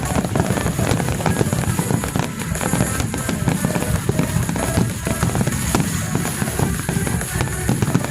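Fireworks display going off continuously: dense, rapid bangs and crackles with heavy low booms, mixed with loud music.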